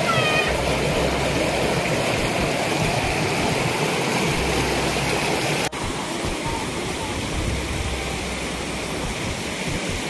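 Water rushing and splashing over rocks in a shallow stream, a steady noise that drops slightly at a cut about halfway through. Near the start there is a brief high-pitched cry.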